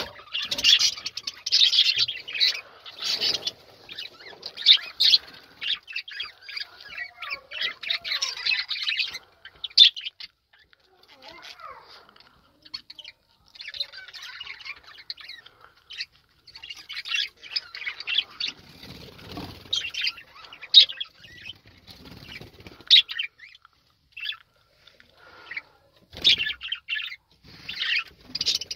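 Budgerigars chattering: rapid high chirps and warbling in bouts, easing off for a few seconds midway before picking up again.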